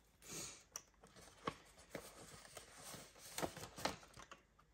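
Faint rustling of paper money and pages being handled, with a few light clicks and taps scattered through.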